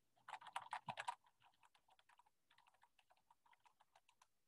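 Typing on a computer keyboard: a quick, louder run of keystrokes about a second in, then lighter, scattered keystrokes.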